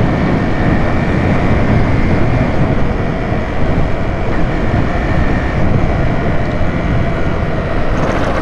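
Steady, loud rush of wind buffeting the microphone and road noise on a moving motorcycle.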